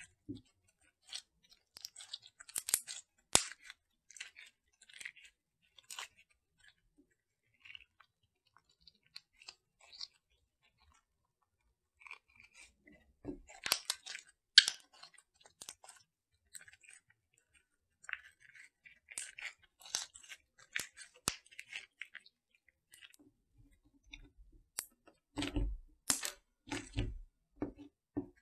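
Glitter clay slime being kneaded and squeezed between fingers: irregular sticky crackles and small pops, with a few heavier, lower squishes near the end.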